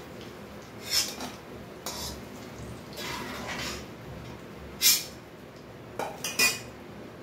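Metal slotted spoon clinking and scraping against a wok as fried kofta are lifted out of the hot oil. There are about half a dozen separate knocks and scrapes, the sharpest about five seconds in.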